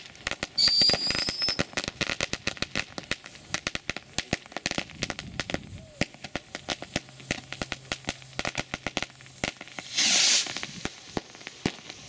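Firecrackers and fireworks going off: a dense, irregular run of sharp bangs and crackles. A short high whistle sounds about a second in, and a loud hissing whoosh comes about ten seconds in.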